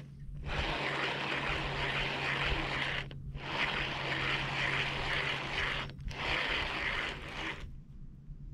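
A fishing reel cranked to retrieve a lure, whirring in three spells of a couple of seconds each with brief pauses between, the last stopping shortly before the end. A steady low hum runs underneath.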